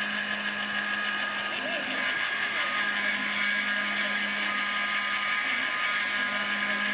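Proxxon MF70 mini milling machine converted to CNC, isolation-milling a copper circuit board: a steady machine whine made of several held tones, with faint pitches sliding up and down.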